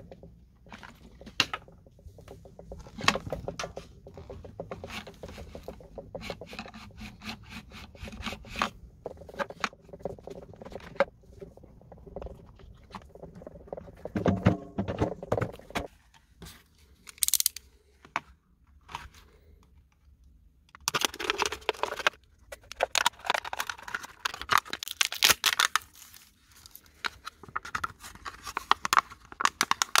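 Plastic handling noises: clicks and scrapes of a wet-and-dry vacuum cleaner's pleated cartridge filter being handled against its plastic housing. After a quiet stretch about two-thirds of the way in, a thin plastic drinking bottle crackles and crinkles densely as it is handled and cut down to a ring.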